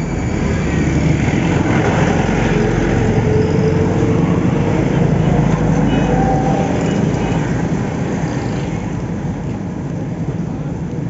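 Street traffic noise: a steady engine rumble from motorcycles and other vehicles moving along a road.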